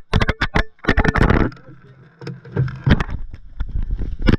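A quick run of sharp clicks and knocks, about ten a second, then rushing and rubbing noise on the action camera's microphone as it is jostled during fast movement, with scattered knocks after.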